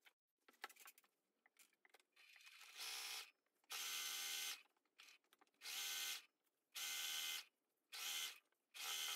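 Electric sewing machine stitching in short runs: about six stretches of steady motor running, each half a second to a second long with brief stops between, beginning about two seconds in. Before that there are only faint clicks and rustles of fabric being handled.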